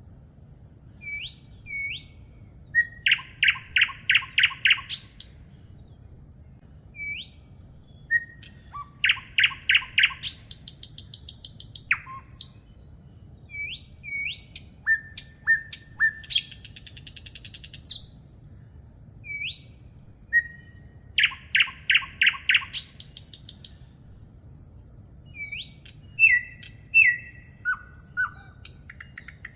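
A songbird singing the same song over and over: a few short up-slurred notes, then a fast, loud run of repeated notes, about every six seconds. Higher buzzy trills come between the phrases.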